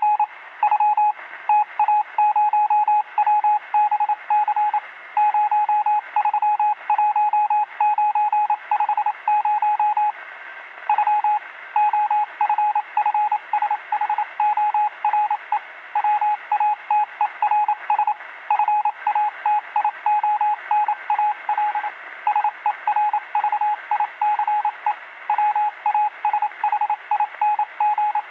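Morse code received over a radio: a single steady beep keyed on and off in dots and dashes, over a bed of radio receiver hiss.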